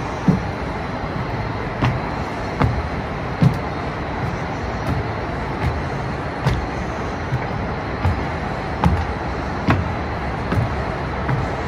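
Footsteps at a walking pace, with a soft thump about every 0.8 seconds on wooden decking, over a steady hum of city traffic.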